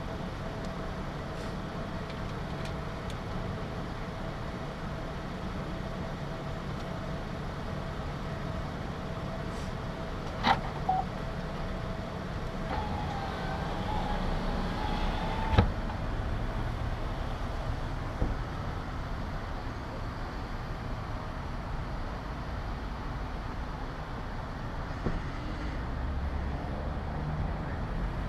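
Steady low rumble and hum of a running vehicle, with a sharp click about ten seconds in and a knock about five seconds later.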